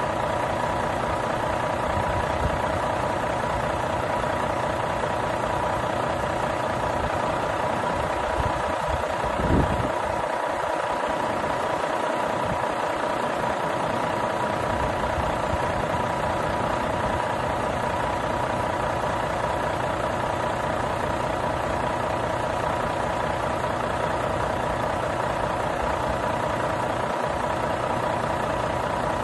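Renault T480 truck's 13-litre six-cylinder diesel idling steadily, with one brief knock about ten seconds in.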